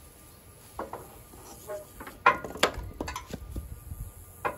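Metal clinks and knocks as the piston rod of a John Deere 158 loader's bucket cylinder is slid out of its barrel. They are loudest around the middle, with one last clink near the end.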